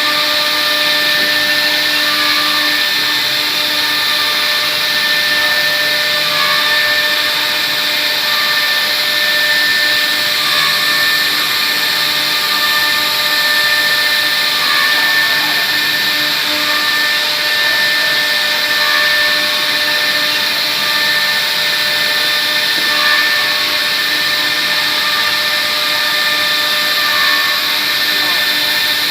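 Wood CNC router spindle running steadily at speed: a constant high whine made of several held tones over an even hiss.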